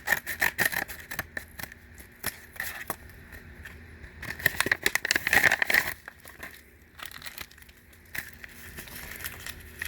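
A mail package being torn open by hand, its plastic and bubble-wrap packing crinkling and crackling in a run of rustles and clicks, loudest about halfway through.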